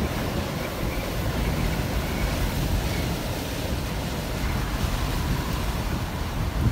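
Strong wind, estimated at 60 to 80 miles an hour, rushing steadily and buffeting the microphone with a low rumble, just behind a tornado that has passed overhead.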